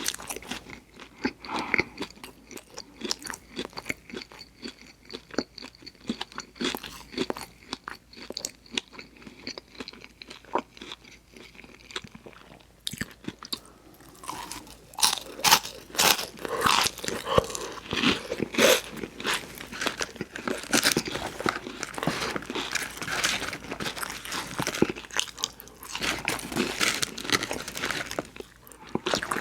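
Close-miked mouth sounds of eating a burger and fries: wet chewing with crisp crunching bites. The bites are sparse and soft at first, then louder and more frequent from about halfway.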